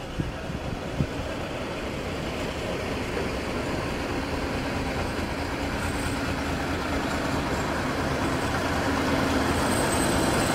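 Mk45 narrow-gauge diesel locomotive approaching slowly and drawing alongside, its engine and running noise growing steadily louder, with a steady engine hum coming up in the second half. A couple of sharp clicks near the start.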